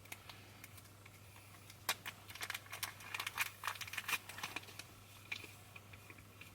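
Crisp crinkling and clicking of something being handled close by: a dense burst of about two and a half seconds beginning about two seconds in, with a few single clicks before and after.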